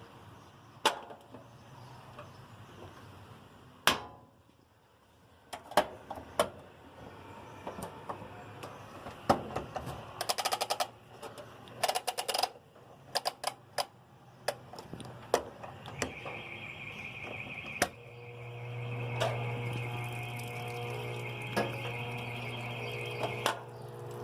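GE Profile agitator washer being set: sharp clicks and two quick runs of rapid clicking from its control panel. About two-thirds of the way in a steady hiss starts, and a low steady hum joins it as the machine begins to fill with water.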